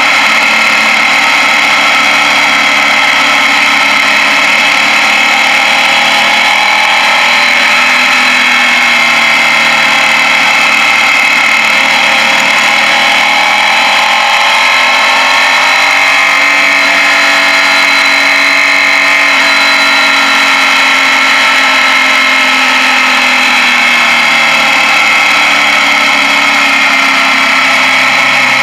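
Suzuki Gladius 645 cc V-twin motorcycle engine running steadily on a downhill ride, its pitch drifting slowly up and down as the speed changes, heard from the rider's head-mounted camera.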